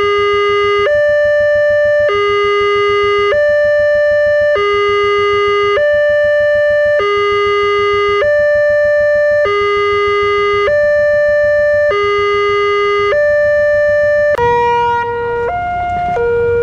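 Electronic railway level-crossing warning alarm sounding a steady two-tone signal, a low and a high note alternating about every second and a quarter, which warns that a train is approaching. About fourteen seconds in it gives way to another crossing's alarm, whose two-tone pattern alternates faster.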